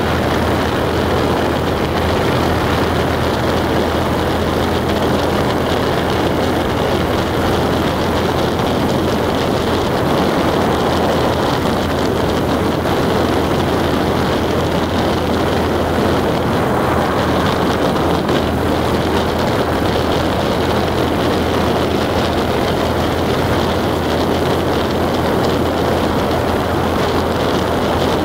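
A car driving steadily: even engine and tyre-on-road noise with a constant low hum, no change in speed.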